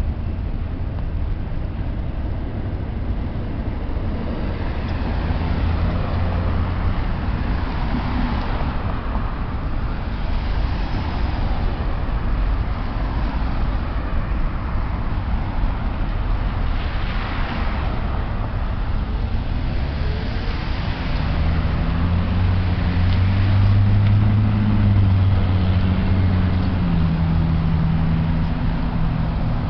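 Road traffic at a busy intersection: cars passing by over the low rumble of a double-stack freight train rolling through the crossing. In the last third a pickup truck's engine hums close by and becomes the loudest sound.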